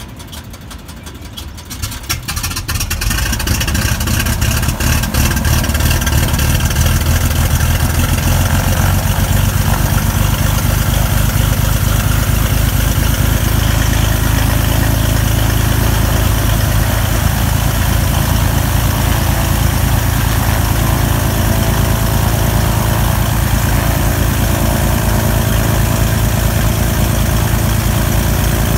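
Piston engine of a twin-engine propeller airplane being started: a couple of seconds of cranking with fast, uneven firing, then it catches about three seconds in and settles into a loud, steady idle.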